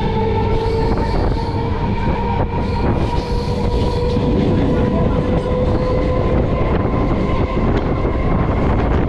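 Electric suburban train running at speed, heard from on board: a steady rumble of wheels on rail with rail clicks, over a steady whine that rises slightly in pitch.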